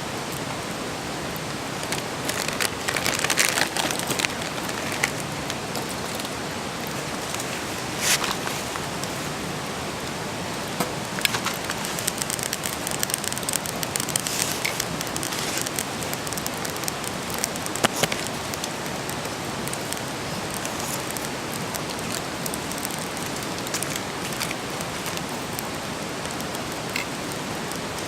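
Wood campfire burning with a steady hiss and scattered crackles and pops, busiest around three seconds in and again between about eleven and fifteen seconds in.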